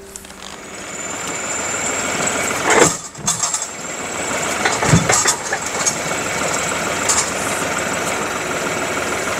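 New Holland tractor's diesel engine running, getting louder over the first couple of seconds as its front loader works among oak logs, with a few sharp knocks at about three and five seconds in.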